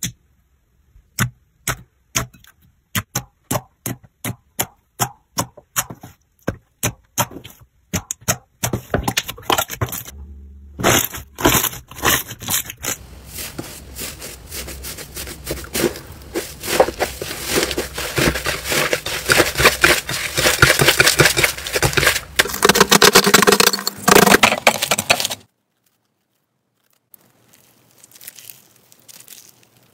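Hands squishing slime. First comes a run of sharp pops and clicks, about two a second, as fingers press into clear slime. Then comes dense crackling and crunching from a thick kneaded slime that grows louder and stops abruptly, followed near the end by faint crinkly sounds.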